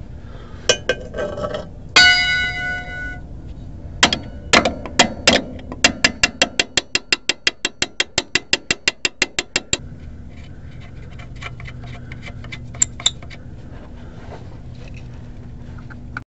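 Ratcheting box-end wrench turning the nut on a shock absorber's lower mount bolt: a metallic clang that rings for about a second near the start, a few scattered clicks, then a fast even run of ratchet clicks, about eight a second, for nearly four seconds.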